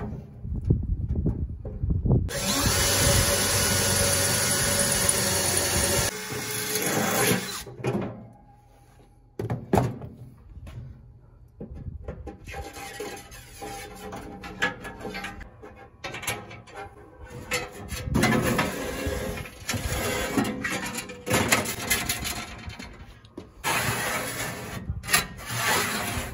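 Cordless drill running and boring into metal, in a steady run of about five seconds starting about two seconds in and again briefly near the end. In between, short clinks and scrapes of metal being handled.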